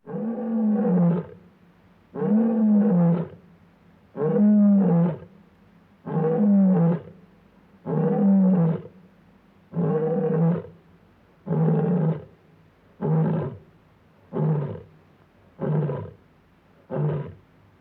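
Lion roaring: a bout of deep calls, the first six long and about two seconds apart, then a quicker run of shorter grunting calls about every second and a third.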